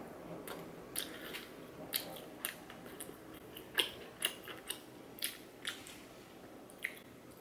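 Close-up chewing of crunchy food: a series of short, crisp crunches at an uneven pace of about two a second.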